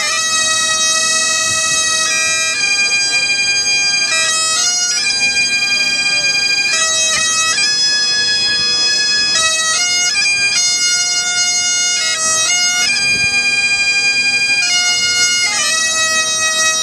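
Bagpipes playing a melody, the chanter stepping from note to note over a steady drone.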